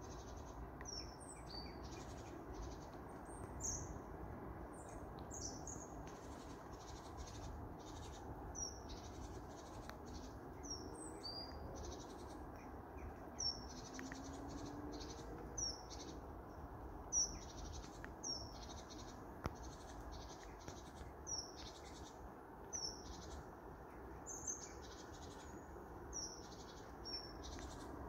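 Small birds chirping repeatedly, short high downward chirps every second or so, over a steady low background rumble. A faint rising hum passes between about ten and fifteen seconds in.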